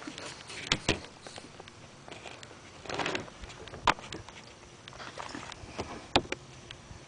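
A few sharp light taps and clicks among soft rustling, with a short breathy sound about three seconds in.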